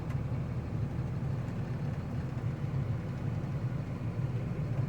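Truck engine running steadily with a low, even rumble.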